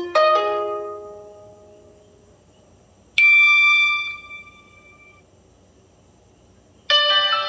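BlackBerry Pearl 3G (9100) alert tones: a quick run of chime notes at the start that rings out over about two seconds, a single bright ding about three seconds in, and another multi-note chime starting near the end.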